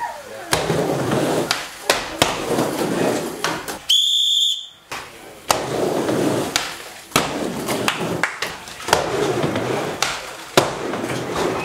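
Skateboard riding a wooden mini ramp: the wheels rumble over the plywood in swelling runs, broken by many sharp clacks of the board and trucks hitting the coping and landing. About four seconds in, a high whistle sounds for about a second during a short lull.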